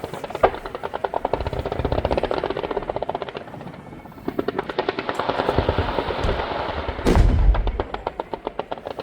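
Fireworks going off: a rapid string of crackling bangs, many a second, swelling and fading, with a sharp bang near the start and a heavy deep boom about seven seconds in.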